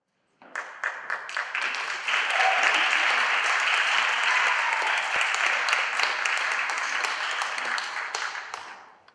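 Audience applauding: a few scattered claps at first, swelling to full applause within about two seconds, then dying away near the end.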